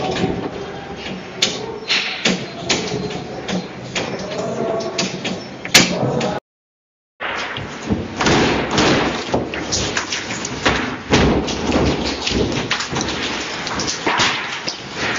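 A building shaking in a strong earthquake: a dense, continuous rattling with knocks and bangs. After a brief dropout a heavier, rumbling clatter follows as pieces of ceiling plaster fall and hit the floor.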